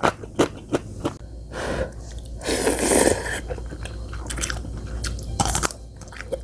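Close-up crunching and chewing of radish kimchi, a run of short, sharp crunches, with a longer, louder burst of noise about halfway through.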